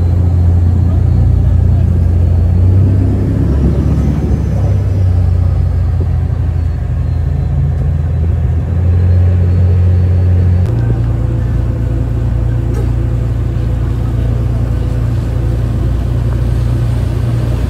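Motorboat engine running under way with a loud, steady low rumble and the rush of water along the hull. About ten seconds in, the engine note shifts to a slightly higher, quieter tone.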